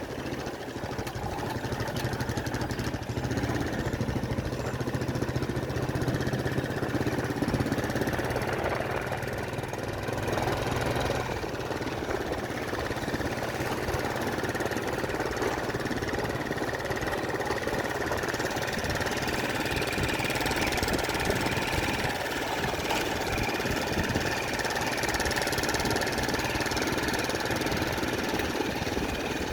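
An engine running steadily, its hum changing slightly about eleven seconds in.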